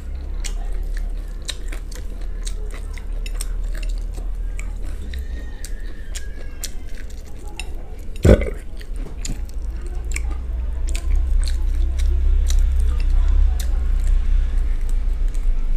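Close-miked eating of fried chicken: chewing and small wet clicks as the meat is torn apart by hand and the fingers are licked, with one loud thump about halfway through.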